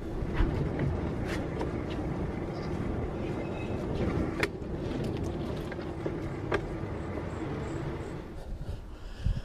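A homemade tall bike built on a mountain-bike frame rolling along a tarmac road: a steady rumble of tyre and wind noise with a low hum, and a few sharp clicks and rattles from the bike.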